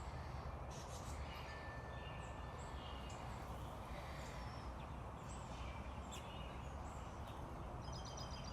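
Outdoor garden ambience: scattered short bird chirps over a steady low rumble, with a quick trill of rapid notes near the end.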